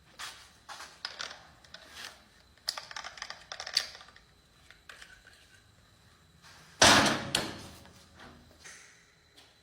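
Irregular clicks and knocks, like things being handled, then one loud bang about seven seconds in that rings briefly and fades.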